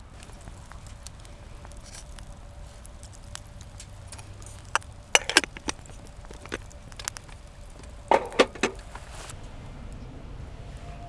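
Several sharp clicks and knocks in two short clusters, the first about five seconds in and the second about eight seconds in, over a low steady rumble.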